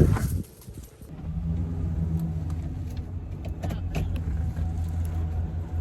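A short loud knock, then from about a second in a motor vehicle's engine running steadily with a low, even hum.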